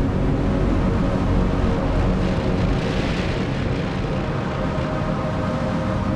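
Dense electronic soundtrack with a heavy low drone. A noisy whoosh swells and fades about three seconds in.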